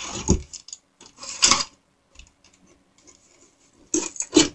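Knife blade slitting the packing tape along a cardboard box's seam: short scratchy strokes at the start, about a second and a half in, and near the end, with light rubbing and tapping on the cardboard between.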